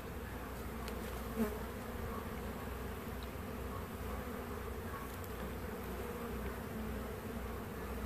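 Steady hum of a honeybee colony, many bees flying around the hive, with one brief louder swell about a second and a half in.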